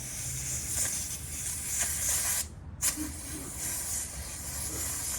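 Pressurised air hissing at a tyre valve stem as the portable compressor's air chuck is being fitted and locked on, in two spells with a brief break about two and a half seconds in.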